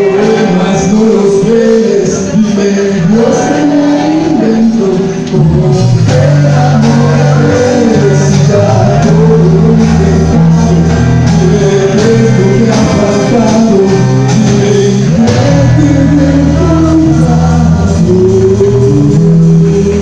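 Amplified rock band playing live in the room: distorted electric guitars, bass guitar and drum kit with a male voice singing. About five seconds in the bass and low guitars come in heavier and stay steady.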